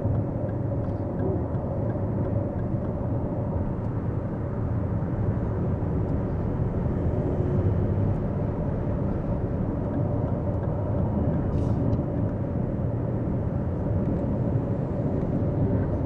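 Steady road and tyre rumble with wind noise inside the cabin of a Lexus RZ 450e electric SUV cruising at motorway speed, with no engine note.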